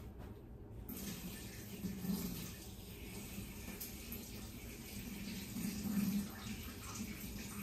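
Water running steadily from a tap, starting about a second in.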